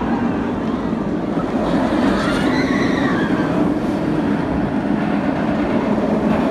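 Cedar Point's Raptor, a B&M inverted steel roller coaster, running its train along the track with a loud, steady rumbling roar. A higher tone rises and falls about two to three seconds in.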